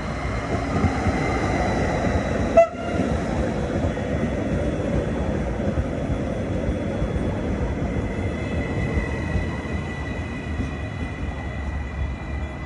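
Stadler electric multiple unit running: a steady rumble with a few thin whining tones that grow clearer in the second half. One sharp, short knock comes about two and a half seconds in.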